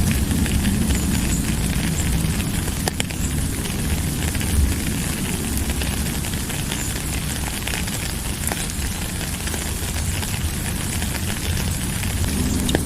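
Steady rain: a dense, even hiss with scattered sharp drop ticks and a deep rumble underneath.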